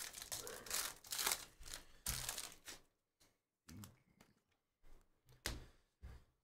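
Foil wrapper of a Prizm football hobby pack being torn open and crinkled for about three seconds, then a few short scuffs as the stack of cards is handled and fanned out.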